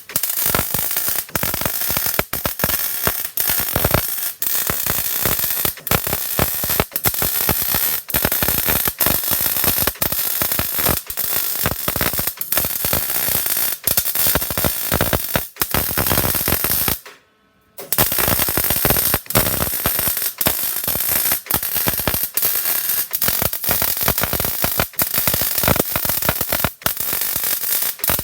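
MIG welding arc crackling and sizzling in long runs, broken by many brief stops between beads, with one longer pause about two-thirds of the way through.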